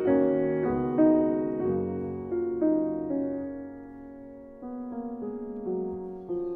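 Soft, slow piano music: single notes and chords struck and left to fade.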